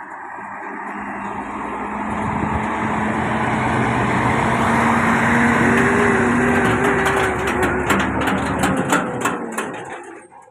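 A large diesel cargo truck's engine running as the truck drives slowly past, growing louder to a peak about halfway through and then fading, with a run of knocks and rattles from its cargo body as it goes by near the end.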